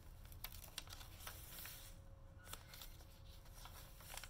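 Faint rustling and soft taps of paper as the stained pages of a handmade journal are turned and handled, a few scattered crinkles over a light hiss.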